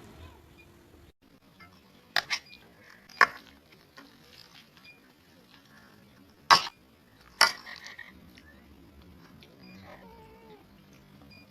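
Metal spoon and fork clinking sharply against a bowl of meatball noodle soup, about five clinks spread in two pairs and a single, while eating.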